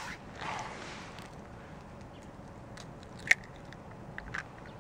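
An eggshell being cracked and pulled apart by hand: a soft rustle in the first second, then faint crackles and a sharp click of shell about three seconds in.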